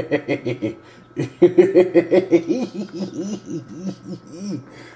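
A man giggling: a burst of quick laughs, a short pause about a second in, then a longer run of rapid laughs that fades out near the end.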